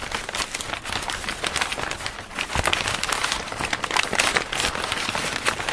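Intro sound effect: a dense, continuous crackling rustle, like paper being crinkled, made of many small clicks over an even hiss.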